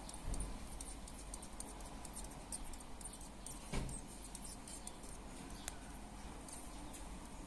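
Faint, irregular light ticks and scratches, a praying mantis tapping and scraping its foreleg on window glass. There is a duller knock just after the start and a louder one about four seconds in.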